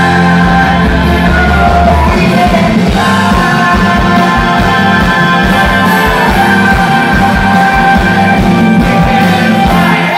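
Rock band playing live: electric guitars, keyboard and a steady beat under several voices singing loudly together.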